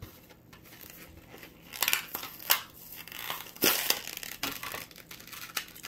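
Plastic and card packaging of a die-cast toy car crinkling and crackling as it is handled, with a few sharper crackles about two seconds in and again between three and four seconds.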